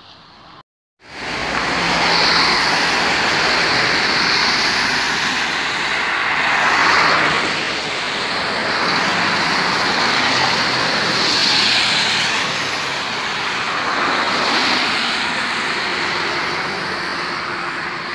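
Wind and tyre noise from riding in a moving vehicle along a wet road: a loud, steady hiss with slow swells every few seconds, starting abruptly about a second in.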